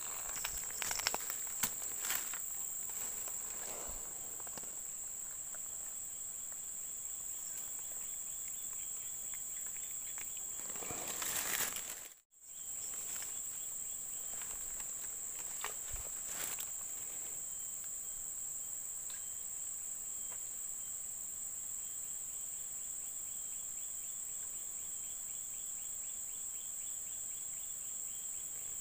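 Insects singing in one steady, high-pitched drone, with a fainter insect chirping in quick pulses underneath. A few sharp clicks come in the first seconds and a rustle about twelve seconds in, followed by a brief drop-out.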